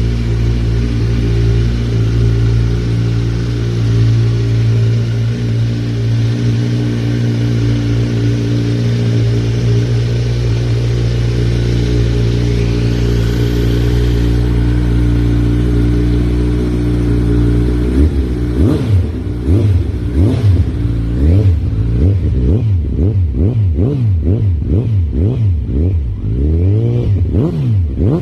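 Kawasaki Z1000 inline-four motorcycle engine running steadily, then from about two-thirds in revved in quick repeated throttle blips, each rising and falling in pitch.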